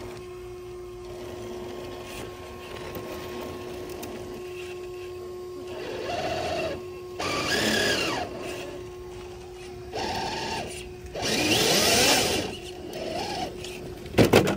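RC scale crawler's electric motor and drivetrain running at a crawl as the truck creeps down steep rock, a steady tone with several short bursts of higher revving that rise and fall in pitch in the second half. A few sharp knocks come near the end.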